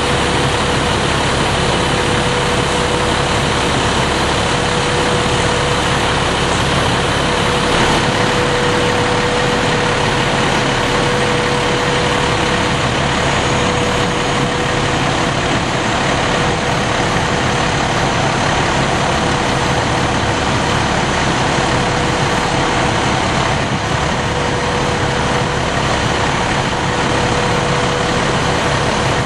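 Fire engine running at idle: a steady engine drone with a constant mid-pitched hum over it.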